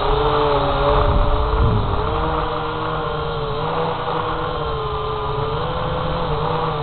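Syma X8HG quadcopter's motors and propellers whining steadily in flight, picked up by the drone's own onboard camera, with the pitch wavering up and down as the throttle changes. A low rumble swells briefly about a second in.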